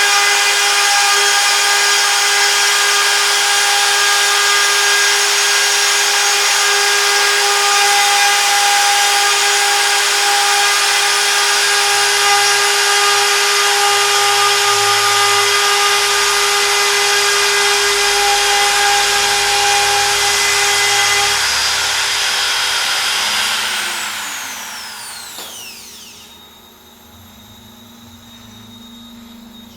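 CNC router spindle running at a steady high-pitched whine, then switched off about three quarters of the way in, its pitch falling as it spins down, leaving a faint hum.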